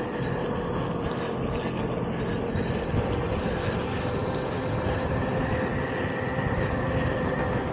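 Electric unicycle riding along a dirt trail: a steady motor whine over rolling tyre and wind noise. Light, evenly spaced ticks begin near the end.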